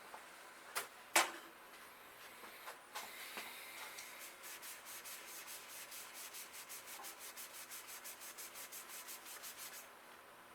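A rag rubbing WD-40 over the painted frame of a BMX bike to lift old sticky residue, in quick back-and-forth wiping strokes of about three or four a second. Two sharp clicks come about a second in.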